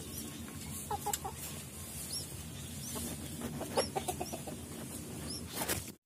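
A hen clucking in short quick runs, about a second in and again near four seconds, over high, arched chirps from small birds repeating every second or so.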